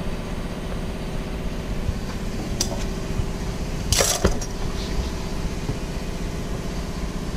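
Industrial sewing machine's motor humming steadily while idle, with a brief scratchy rustle about four seconds in.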